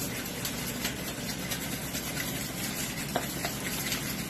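A steady motor-like whir with hiss, like a kitchen fan, under a few faint light ticks as seasoning is shaken over foil-wrapped fish.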